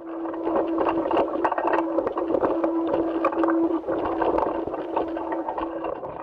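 Soundtrack of NASA spacewalk footage: a steady humming tone under continual rustling and crackling, the noise heard as a suited astronaut moves about.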